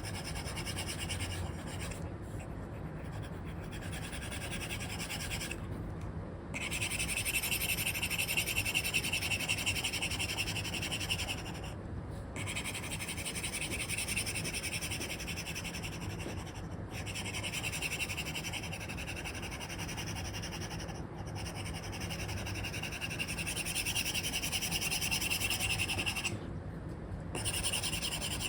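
Stylus nib scratching across a paper-like matte screen film on an iPad (Apple Pencil 2 with an Elecom tip), in long continuous drawing strokes broken by brief pauses about five times where the pen lifts.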